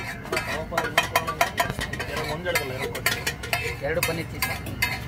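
Metal spatula clanking and scraping on a large flat iron griddle (tawa) as pav bhaji is mixed and mashed, with quick, uneven strikes about four or five a second.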